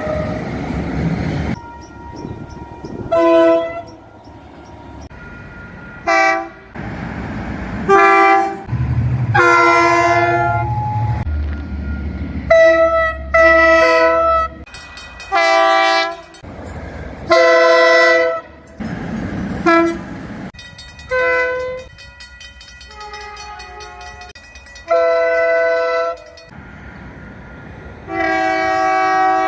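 Train horns of different New Zealand locomotives and multiple units sounding one after another, about a dozen blasts in all, some short toots and some held for a second or two. Each is a chord of several tones, and the sound cuts abruptly from one horn to the next.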